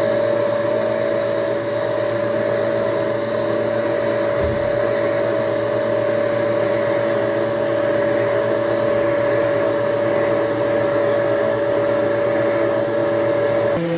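Vacuum cleaner running steadily with a constant motor hum and airflow noise. Its pitch drops a little near the end.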